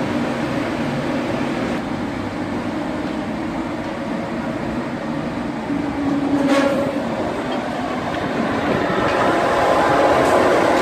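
Rotary dryer machine running: a steady mechanical rumble and rattle, with one sharp knock about six and a half seconds in.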